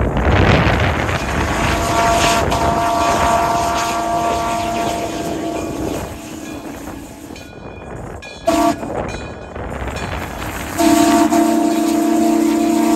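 Steam whistle of Frisco 1630, a 2-8-0 steam locomotive, blowing a chord: a long blast, a short one, then another long, loud blast, over the rumble of the locomotive working toward the listener.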